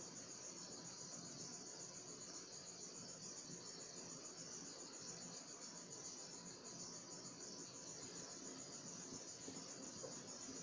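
Faint, steady high-pitched chirring of crickets under quiet room tone.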